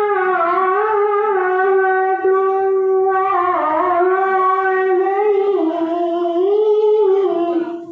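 A boy qari reciting the Quran in the melodic tilawah style into a microphone, amplified: one long, sustained phrase with wavering melismatic ornaments, ending near the end.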